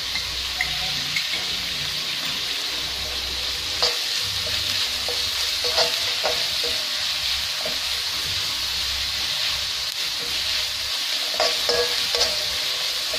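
Sliced vegetables sizzling steadily as they are stir-fried in a metal wok on high flame, with a metal spoon tossing them and clicking against the pan now and then.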